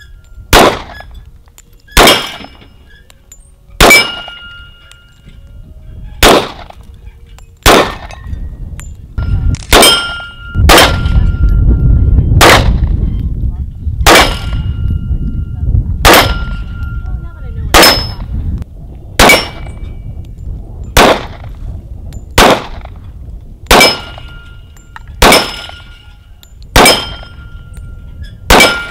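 Handgun shots fired one at a time, roughly every one and a half to two seconds, many followed by the short ring of a steel target plate being hit. A few seconds of low rumbling noise sit under the shots near the middle.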